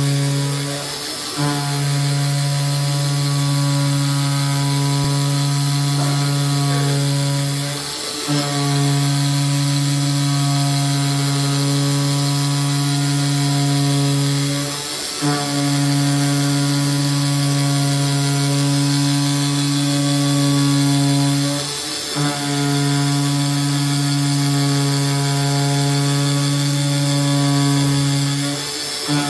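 Digital flatbed cutter cutting gasket sheet, its cutting head giving a loud, steady, low mechanical buzz. The buzz breaks off for a moment about every seven seconds, with a faint click, then resumes.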